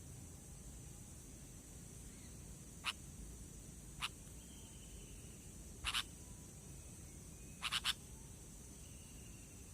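Sooty-headed bulbul (kutilang) calls, sparse and quiet: short sharp call notes, once, once, then a pair and a quick triple a couple of seconds apart, with faint thin falling whistles between them over a steady high hiss.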